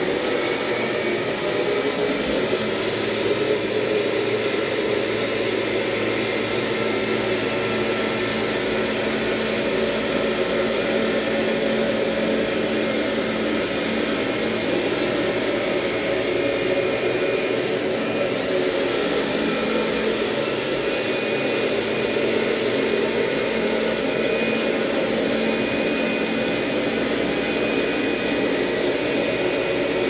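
Kirby upright vacuum running steadily with its carpet shampoo head fitted: an even, loud motor and fan noise.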